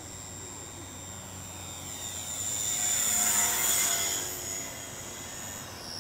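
Electric motor and propeller of a radio-controlled model airplane whining high as it flies past. It grows loud toward the middle and fades, and its pitch drops near the end.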